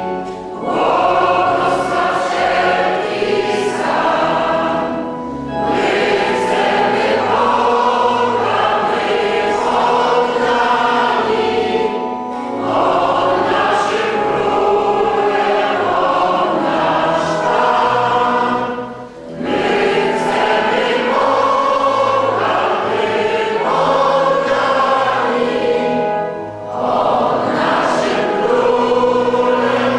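Church congregation singing a hymn together, in long phrases with a short breath pause every six or seven seconds.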